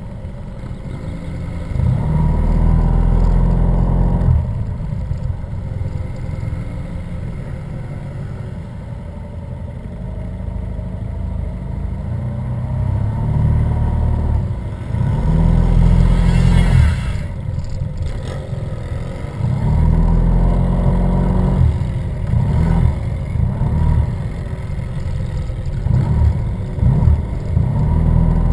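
Yamaha TMAX maxi-scooter engines in a slow-moving group ride, with a low engine note that swells as the bikes pull away about two seconds in, twice more after the middle and again near the end, and eases back in between.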